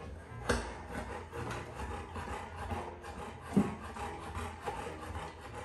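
Newfoundland dog eating from a steel bowl: steady crunching and chewing, with two louder clicks, about half a second in and about three and a half seconds in.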